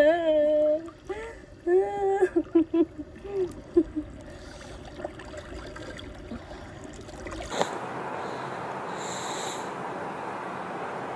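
Drawn-out voice calls from swimmers in the sea over lapping water. A little past halfway it cuts to a steady hiss.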